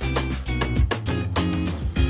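Background music with a steady beat, deep bass and plucked-string notes.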